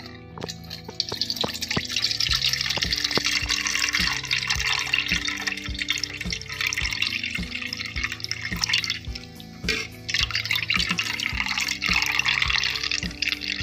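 Cooking water from boiled saag poured in a steady stream from a pot through a steel strainer into a steel bowl, splashing and frothing as the bowl fills. The stream eases briefly about nine and a half seconds in. Background music with a steady beat plays underneath.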